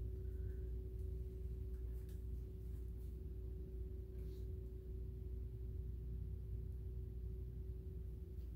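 A steady hum, one even tone held throughout, over a low rumble, with a few faint ticks.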